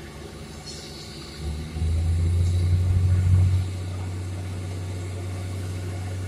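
Borewell drilling rig running with a low engine drone. The drone swells much louder about a second and a half in, holds for about two seconds, then settles into a steady low hum.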